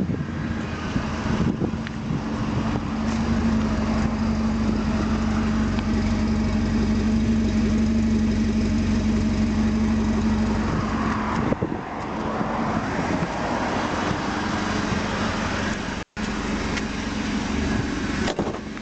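ZMZ-409 inline-four petrol engine of a UAZ Simbir idling steadily and evenly with no knock, its timing chains freshly replaced. The sound cuts out for an instant about sixteen seconds in.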